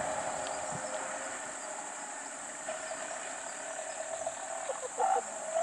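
Insects buzzing steadily in one high, even tone, over a faint steady hum. A short louder sound comes about five seconds in.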